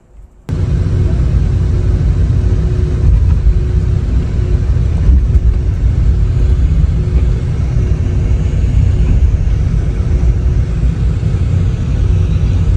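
Loud, steady rumble of a BharatBenz sleeper coach under way, its engine and road noise mixed, with a faint steady hum above it; it starts suddenly about half a second in.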